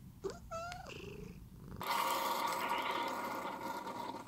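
A domestic cat purring, with a short meow about half a second in. The purring cuts off abruptly before two seconds, and a louder, steady hiss with a whirring hum takes over.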